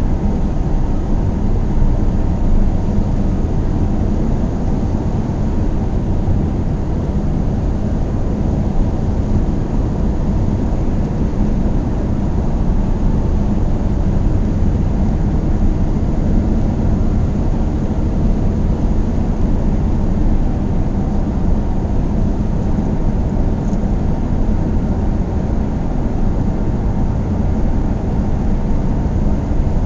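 A car driving at a steady speed: a constant low rumble of road, tyre and engine noise that holds even throughout.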